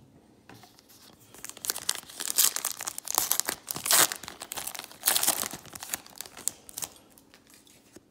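Foil-lined wrapper of a 2018 Donruss Baseball hobby pack being torn open and crinkled by hand. A run of sharp crackling rips starts about a second and a half in, is loudest in the middle, and dies down near the end.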